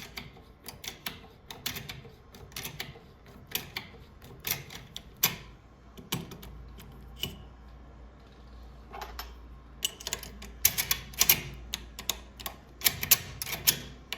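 Sharp metallic clicking of a Prodecoder Automatic decoder tool being worked in a Yale 3+3 double-bit safe lock, turning the lock to its fully locked position. The clicks come irregularly, crowding into quick runs about ten seconds in and again near the end.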